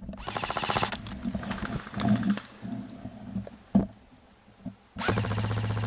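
Airsoft electric rifle (AEG) firing full-auto: the rapid clatter of the gearbox cycling over a low motor hum. There is a burst near the start, a short one about two seconds in, and a longer one near the end.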